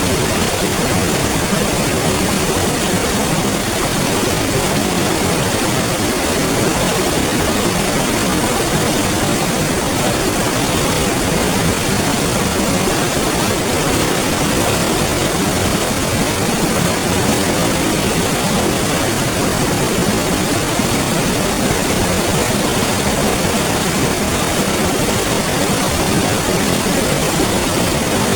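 A clear river flowing: a steady, even rush of water.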